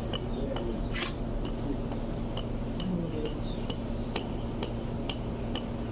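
Sharp metallic clinks, about three a second, with one louder strike about a second in: metal tools and fittings striking one another during work on the drilling rig. Underneath runs a steady hum and low drone of running rig machinery.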